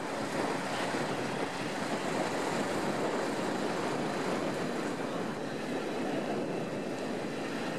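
Steady breeze blowing, a rushing noise with no distinct engine note or clicks.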